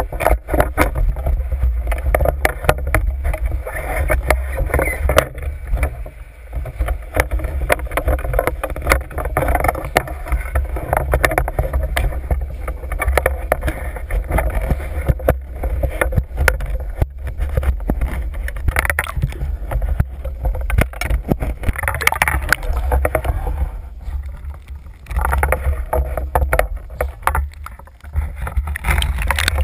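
Water rushing and sloshing past an underwater camera housing on a speargun, with many sharp knocks and clicks as the gun is handled.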